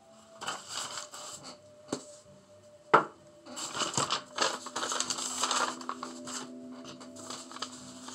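Scratchy rubbing and scraping of hands and a sheet of paper on a sand-painting board, coming in uneven patches, with one sharp tap about three seconds in. Faint steady tones run underneath.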